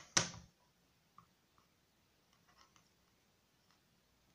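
Hands handling a Blu-ray steelbook case and its disc: one sharp plastic click just after the start, then a few faint light ticks and taps of fingers on the case and disc.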